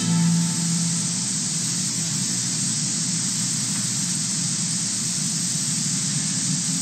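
Steady, even hiss with no tones or rhythm in it, the noise floor of the recording between segments. The last note of the music dies away in the first half second.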